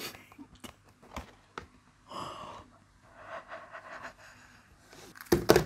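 McD fried-chicken cardboard box being handled and opened: soft clicks and paper rustles, with a sharp breath about two seconds in and a louder burst of crackling near the end.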